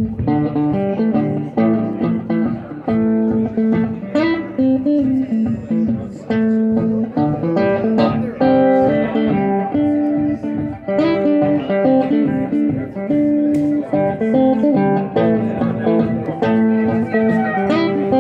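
Acoustic blues played live: an acoustic guitar picked and strummed in a steady rhythm, with a harmonica playing long held notes over it.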